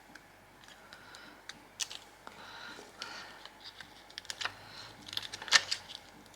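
Scattered light clicks and taps with a brief soft rustle, from paper craft pieces and embellishments being handled and pressed down on a desk; the sharpest cluster of clicks comes about five and a half seconds in.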